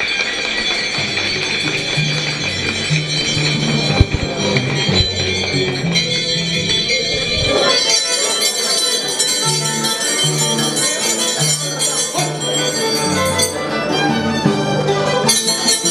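Andean harp and violin playing a scissors-dance tune, the harp's bass stepping underneath, with the dancers' steel scissor blades clinking and ringing over the top. A single sharp knock about four seconds in.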